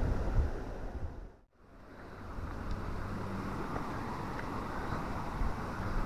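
Wind buffeting the microphone, fading out to a brief silence about one and a half seconds in, then steady outdoor background noise with lighter wind rumble.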